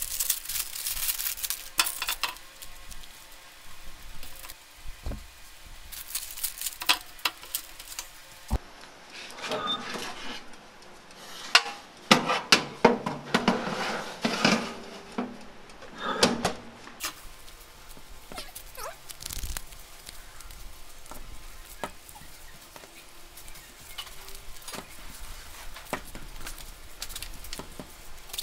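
Handling noise: crinkly baking paper and plastic scraps rustling, and a metal baking tray clinking and scraping as it goes into a small electric oven, with a dense run of clatters in the middle.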